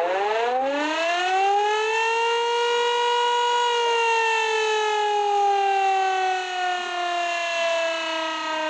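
Civil defense warning siren winding up to a steady wail over about two seconds, holding, then slowly sliding down in pitch.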